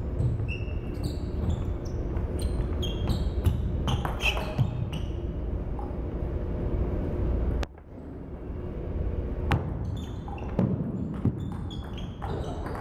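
Table tennis ball clicking and pinging off the table and paddles, many short hits, over a steady low room rumble. The rumble drops out suddenly about eight seconds in, then gradually returns.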